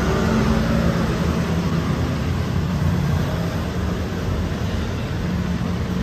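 Steady road traffic noise: a continuous low rumble of vehicles running past on a busy street.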